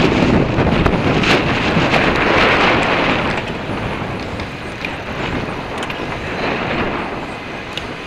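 Wind rushing over the microphone of a moving e-bike, over the hum of city traffic. The wind noise is loud at first and eases about three and a half seconds in.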